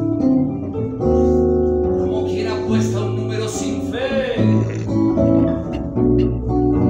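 Slow blues played live on a Stratocaster-style electric guitar over a Korg keyboard, with sustained bass notes underneath.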